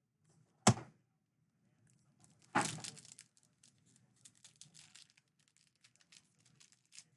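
A sharp click just under a second in, then a baseball card pack's wrapper torn open about two and a half seconds in, followed by light scattered crinkling as the wrapper is handled.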